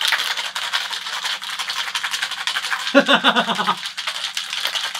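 Ice being shaken hard in a stainless steel cocktail shaker wrapped in a towel: a fast, steady rattle as the drink is chilled. A burst of laughter comes about three seconds in.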